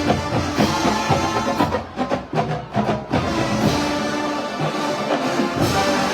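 Marching band playing: brass chords over a drumline's steady drum hits, thinning to a few separate strikes about two seconds in before the full band returns with held chords.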